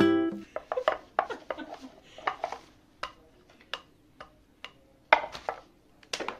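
Kitchen utensils and dishes clinking and clattering: an irregular run of sharp clinks, some briefly ringing, the loudest about five seconds in.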